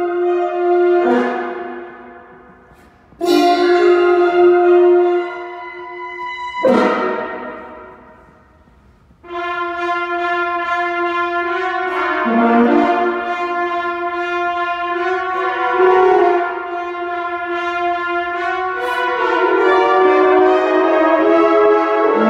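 A concert wind band playing, with French horns sounding held notes close by. Phrases of sustained brass chords are broken by pauses and ringing strikes about a second in and near seven seconds. From about nine seconds on the band plays a continuous, fuller chord passage.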